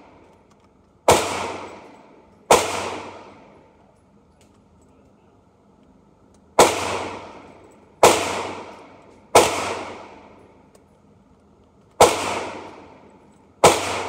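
Seven gunshots at uneven intervals, fired in neighbouring lanes of an indoor shooting range. Each crack rings off for about a second in the range's echo.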